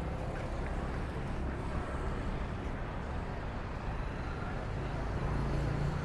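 Road traffic: a steady low rumble of cars passing on the street, with one engine's hum growing louder near the end.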